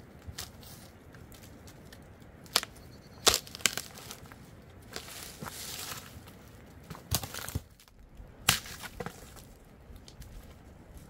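Dry firewood being snapped and crushed: a handful of sharp cracks and crunches spread over several seconds, the loudest about three seconds in, with a short rustle between them.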